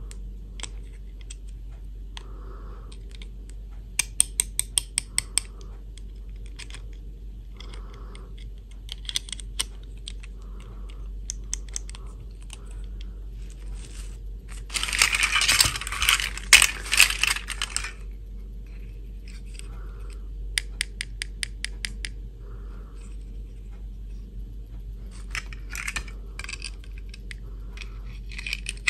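Small hard plastic doll parts clicking and clattering as they are handled: rigid clip-on dresses and little dolls knocking together and snapping into place. Scattered sharp clicks throughout, a quick run of clicks early on, and a dense spell of clatter lasting about three seconds midway.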